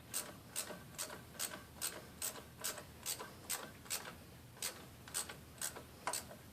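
Hand ratchet wrench clicking in a steady rhythm, about two sharp clicks a second with one short pause past the middle, as the bolts on the freshly cleaned throttle body are run down.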